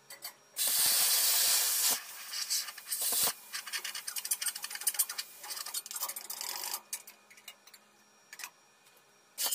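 Handheld plasma cutter cutting a curved line through thin sheet steel. A loud hiss starts about half a second in and holds steady for over a second, then turns uneven and broken up as the cut goes on, and stops about seven seconds in. A couple of light clicks follow near the end.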